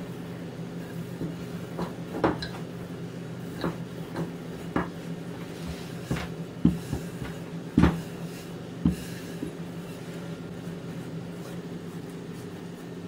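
Wooden rolling pin rolling out yeast dough on a silicone baking mat, with scattered short knocks and taps as the pin and dough are handled, the loudest about eight seconds in. A steady low hum sounds throughout.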